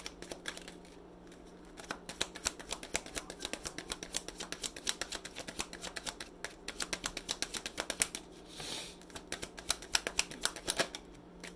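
A deck of tarot cards being shuffled by hand: a fast run of sharp card clicks and flicks that starts about two seconds in and goes on almost to the end, with a brief papery swish a little after eight seconds. A steady low hum lies underneath.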